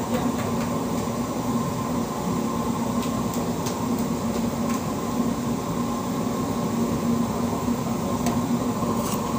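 Steady roar of bakery equipment at a working tannour bread oven, with a few faint taps as the baker works the dough against the oven.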